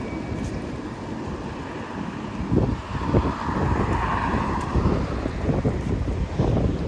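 Wind gusting on the microphone over street noise, with a car's tyres hissing past on wet asphalt, swelling and fading away in the middle.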